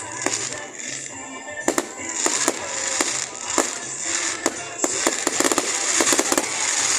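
Fireworks going off in many sharp bangs and crackles, coming thick and fast from about two seconds in, over music played along with the display.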